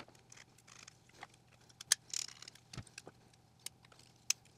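Small clicks, taps and rattles of 3D-printed ABS plastic parts and a small metal coil spring being handled and fitted together by hand, with a short scrape about two seconds in, over a faint steady hum.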